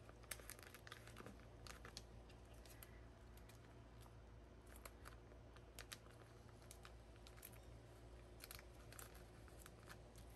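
Very faint, scattered ticks and crinkles of photo cards and overlay cards being slid into clear plastic binder pocket sleeves, over a low steady hum.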